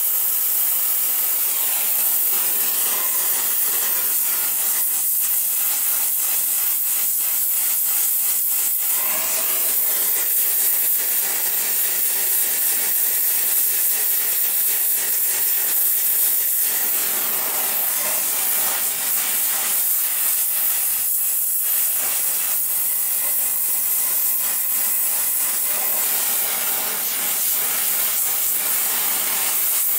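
Gas torch flame hissing steadily while it heats a seized stud in a cast-iron exhaust manifold.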